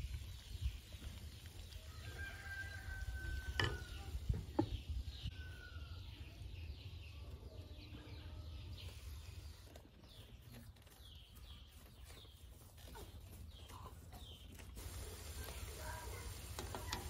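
Chickens clucking and a rooster crowing, with many short chirps and two sharp knocks about four seconds in, over a steady low rumble.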